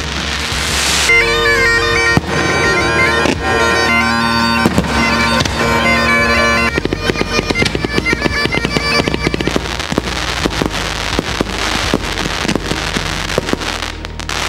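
Bagpipes playing a melody over their steady drones while fireworks crackle and pop. The piping fades about halfway through, leaving a dense crackle of fireworks bursts.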